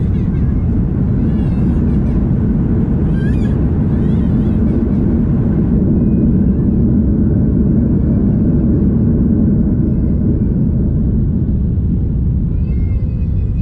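Loud steady rumble of an Airbus A330-300 rolling along the runway just after touchdown, heard in the cabin over the wing. A few brief high, wavering squeals come through about three to five seconds in and again near the end.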